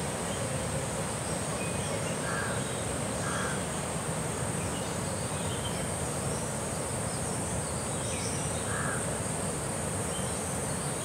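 Steady high-pitched drone of insects in woodland, with a crow cawing about three times, briefly, around two, three and a half, and nine seconds in.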